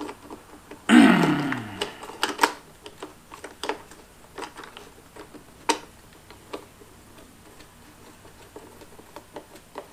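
Scattered sharp plastic clicks and snaps as the air filter cover and housing of a small gas leaf blower are handled and pressed into place. About a second in comes a short falling vocal sound, a grunt of effort, which is the loudest thing.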